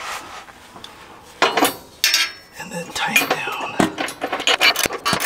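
Metal clinking and knocking as a skid plate and cross member are pushed up against a pickup's frame and the bolt hardware is handled by hand. The sound is sparse at first, then a quick run of sharp knocks starts about a second and a half in.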